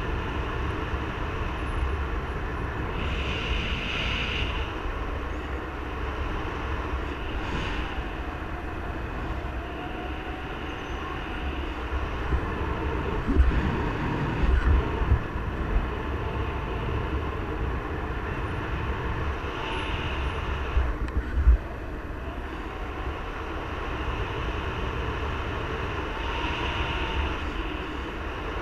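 Steady wind rushing over the microphone of a paraglider in gliding flight, with a few louder buffets about halfway through and again a little later.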